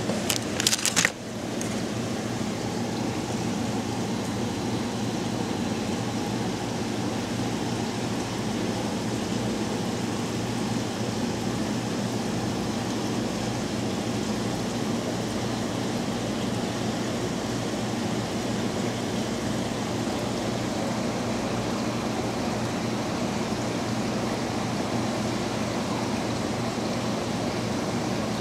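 Steady low hum and hiss of room noise, with a brief crinkle of a clear plastic package being handled about a second in.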